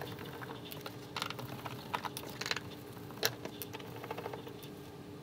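Gloved hands working loose a metal fuel-pump access cover on the floor under a car's rear seat: scattered small clicks and taps of the plate, the sharpest knock about three seconds in, over a faint steady hum.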